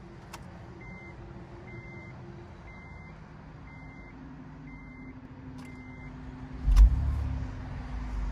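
Six short dashboard chimes about a second apart from an Acura TL Type-S, then its 3.5-litre V6 starts near the end with a sudden loud burst that settles into a steady idle. The engine is already warm, so this is not a cold start.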